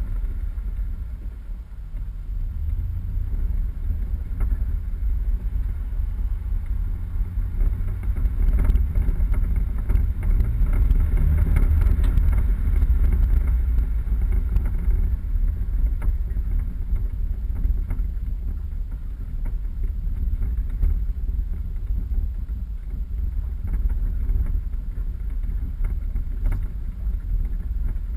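A 4x4 driving off-road: a steady low rumble of engine and running gear with wind buffeting the microphone, swelling louder for several seconds around the middle.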